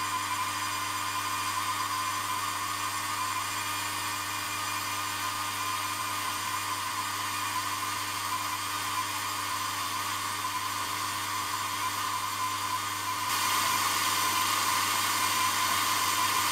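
Milling machine spindle running steadily with a whining hum, turning a 1.5 mm end mill that is being fed down in small steps into an aluminium cylinder head to mill out a broken tap. About thirteen seconds in the sound gets louder and brighter.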